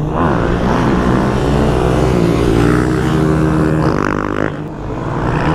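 Motorcycle engines running under throttle, more than one at once, the revs rising and falling, easing off briefly near the end.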